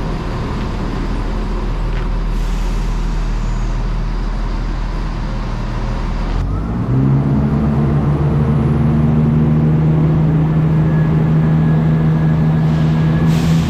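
Diesel train engine running with a steady low hum. About six and a half seconds in it revs up quickly to a higher, louder note and holds there, as the train takes power.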